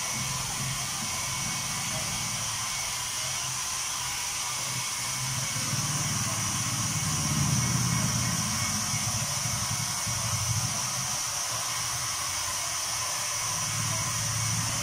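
Hand-held hair dryer blowing steadily with a constant airy hiss, used to dry the water-based ink on screen-printed fabric. A low hum runs underneath and swells around the middle.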